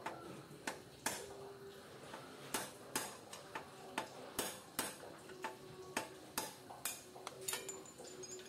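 A hammer lightly tapping a metal drift to drive the old upper steering-head bearing cone (race) out of a Splendor motorcycle's frame head tube: evenly spaced metallic taps, about two a second, each with a short ring.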